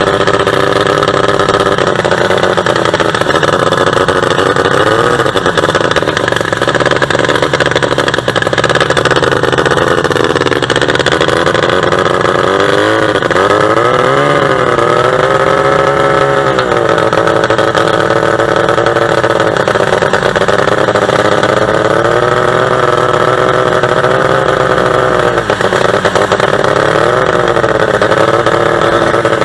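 45 hp two-stroke boat engine running hard under way, heard from on board, its revs rising and falling several times.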